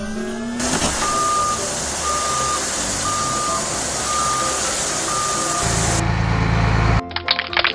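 Truck reversing alarm beeping five times, about once a second, over a steady engine and noise bed. Near the end the engine gives way to a quick run of clicks and short tinkly tones.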